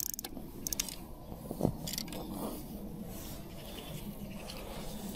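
Faint handling noise: soft rubbing and scattered clicks from the freshly caught perch and the tackle being handled, with a short run of rapid ticking that stops just after the start.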